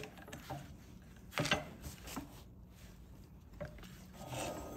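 A few faint, scattered metal clinks and knocks from hand tools being worked on an engine, the clearest about a second and a half in.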